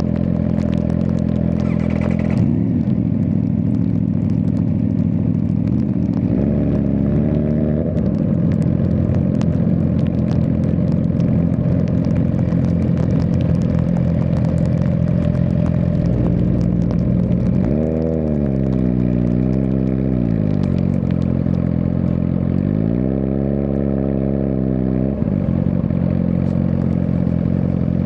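Suzuki GSX-R1000R's inline-four engine running under way, with the revs rising and falling briefly about six seconds in, again around eighteen seconds, and once more around twenty-three seconds.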